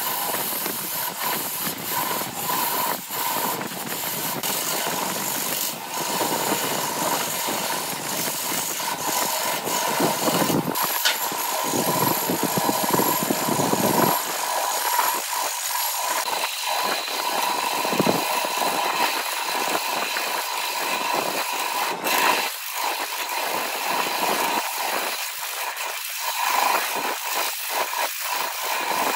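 Wood lathe running with a steady whine while a hand-held turning tool cuts into the spinning blank of glued bamboo chopsticks and epoxy resin: a continuous scraping hiss with scattered ticks as shavings are thrown off.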